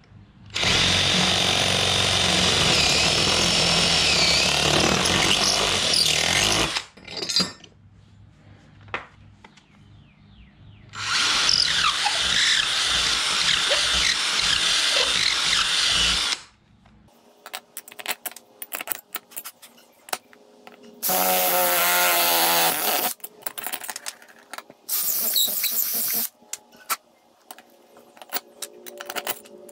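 Ryobi cordless drill driver boring bolt holes through a dinghy's transom, through the holes of a stainless steel bracket. It runs in two long steady runs of about six and five seconds, then a shorter run later, with small clicks and knocks in between and near the end.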